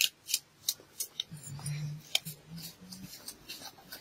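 Small hand knife slicing through green chillies and tomatoes held in the fingers over plates: crisp cutting clicks, a few about a third of a second apart at the start and another about two seconds in. A faint low murmur runs through the middle.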